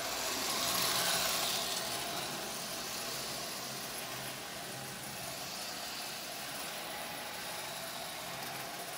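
Toy-train trolley built from a Lionel rail inspection motor, running on the layout's track: a steady whir of its small electric motor and rolling wheels, swelling briefly about a second in and then holding steady.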